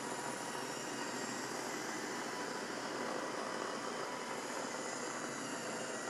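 Roomba robot vacuum running on carpet: a steady whirring noise from its motor and brushes, with a faint steady whine.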